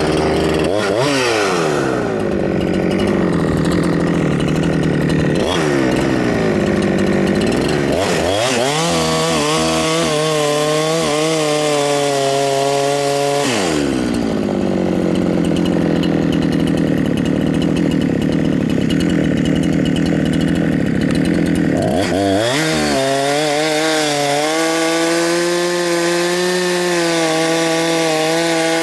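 Huyosen 6524 two-stroke chainsaw running after a carburetor mixture adjustment, revved up and held at high revs several times and dropping back in between: up briefly at the start, up again about 8 seconds in, down about 13 seconds in, and up again about 22 seconds in until the end.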